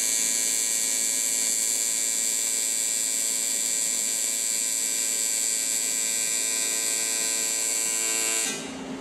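AC TIG welding arc on aluminum from an inverter machine set to 80 amps and 120 Hz, a steady buzz. The arc dies away near the end as the foot pedal is let off.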